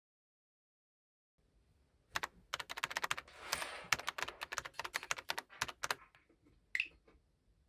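A run of quick, irregular clicks, like keys being typed, starting about two seconds in and lasting about four seconds, followed by a short high tone near the end.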